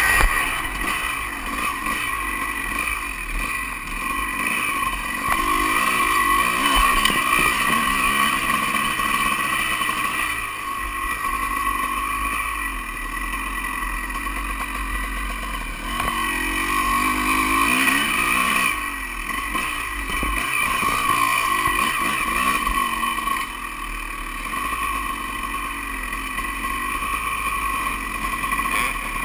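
Honda CR250 two-stroke dirt bike engine running hard while being ridden, its loudness swelling and easing as the throttle is worked.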